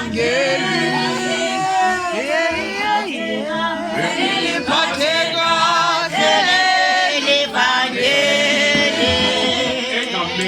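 Several voices singing together without instruments, with many pitches overlapping.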